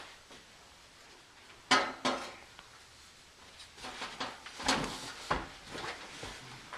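Steel mesh cargo barrier clanking and knocking against the vehicle as it is worked into place: one sharp knock about two seconds in, then a run of lighter knocks and rattles.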